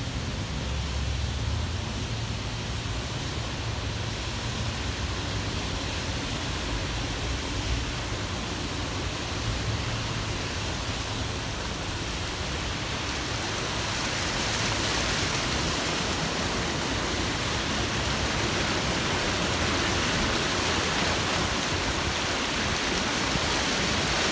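Steady rushing hiss of rain and flash-flood water running over the road, with tyres going through the standing water, heard from inside a car. It grows louder and hissier about halfway through.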